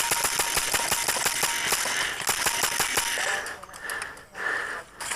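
Airsoft gun firing rapidly on full auto, about ten shots a second, then breaking into a few short bursts after about three and a half seconds.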